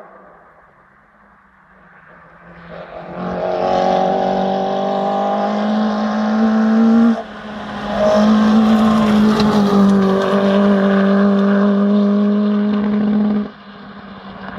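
Rally car engine at high revs as the car approaches and passes. The engine note holds steady, breaks off briefly about seven seconds in, comes back at full strength, and falls away sharply near the end.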